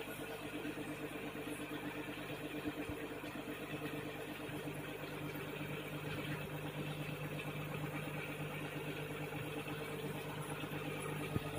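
Steady mechanical hum of an aquarium air pump driving the tanks' sponge filters, running without a break.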